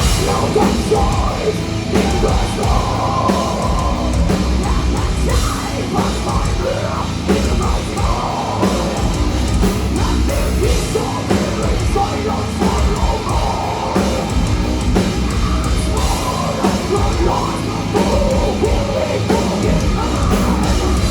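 Live heavy metal band playing loud: distorted guitars and bass over a pounding drum kit, with vocals on top.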